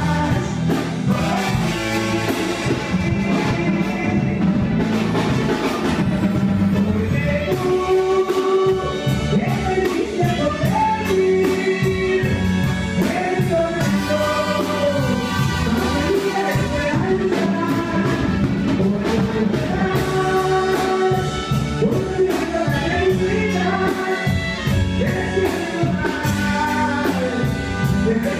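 Regional Mexican banda music played at a sound check: a full band with a steady beat and a lead vocal, the singing clearest from about eight seconds in.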